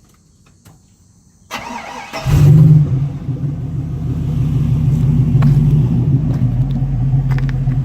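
Astro van's Escalade-swapped V8 engine starting through a new 3-inch exhaust with a free-flowing muffler: the starter cranks about a second and a half in, the engine catches with a brief flare, then settles into a steady, deep idle with a nice little roar.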